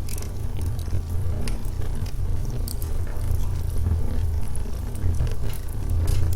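Wood fire burning in a fireplace: a steady low rumble with scattered crackles and pops from the logs.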